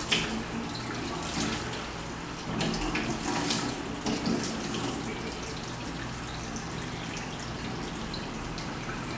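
Kitchen tap running steadily into a stainless-steel sink, with brief knocks and scrubbing from dishwashing in the sink, most of them between about two and a half and four and a half seconds in.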